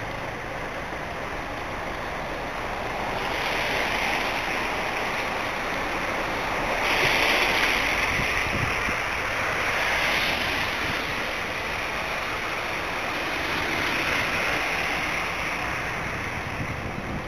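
Steady rushing hiss of a wet, rainy city street, swelling and fading several times.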